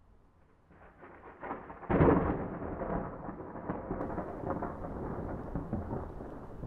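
Thunder: a low rumble builds, breaks into a loud clap about two seconds in, then rolls on unevenly.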